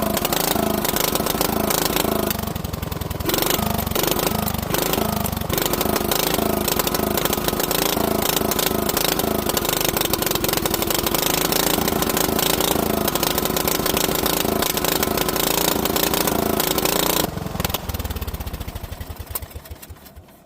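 Small lawnmower engine running with its speed hunting up and down, a rich surge from a badly adjusted carburetor. About three seconds before the end it cuts out and the firing slows and dies away as it coasts to a stop.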